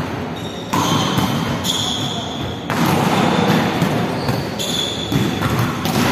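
Volleyballs being hit and bouncing on the court floor, the thuds echoing around a large indoor hall.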